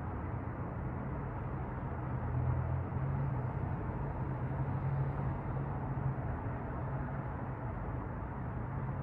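City street traffic heard from a 12th-floor window: a steady, muffled hum of traffic, with a low rumble that swells about two seconds in and fades after a few seconds.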